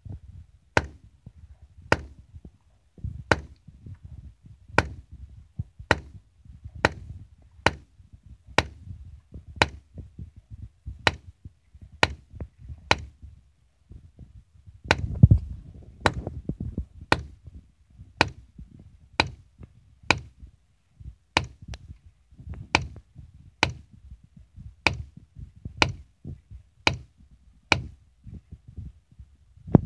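DPMS Panther AR-15 in .223 firing semi-automatic: about thirty sharp shots at a steady pace of roughly one a second.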